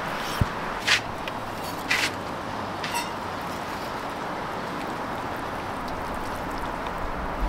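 Steady sizzling hiss of a ribeye steak cooking over an oak-ember fire, with a few sharp crackles in the first three seconds.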